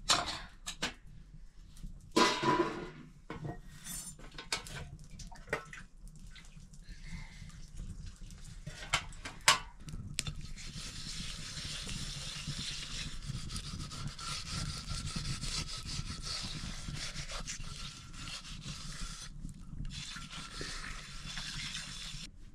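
Metal cooking pots and utensils clinking and knocking at an open wood fire. From about ten seconds in, a steady scraping hiss comes from a metal pan held over the fire as it is rubbed out by hand.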